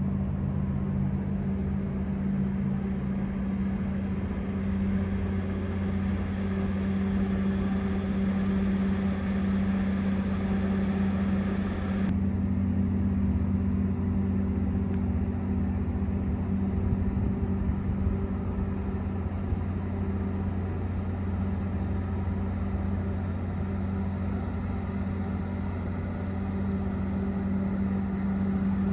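Steady low machinery hum with a droning tone, holding an even level throughout, that changes slightly in character about twelve seconds in.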